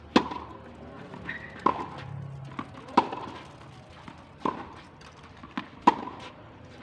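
Tennis rally: the ball struck by rackets with a sharp hit about every second and a half, five in all, with fainter ball bounces between them.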